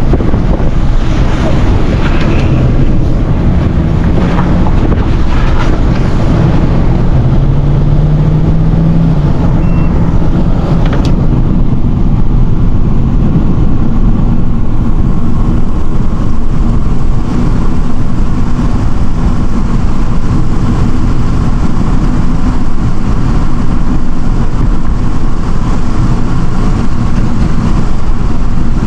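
A vehicle driving: steady engine and road noise with wind buffeting the microphone, the engine note rising briefly about eight seconds in.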